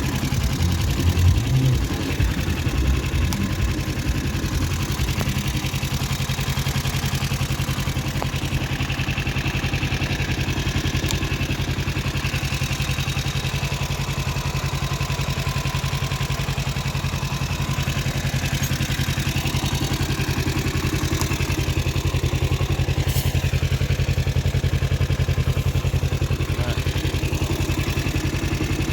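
1988 Kawasaki Eliminator 250's parallel-twin engine idling steadily, a little uneven in the first few seconds before settling into an even beat.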